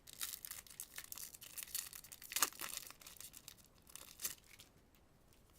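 Foil wrapper of a Yu-Gi-Oh booster pack crinkling and tearing open in a run of crackles, the loudest rip about two and a half seconds in, dying down near the end.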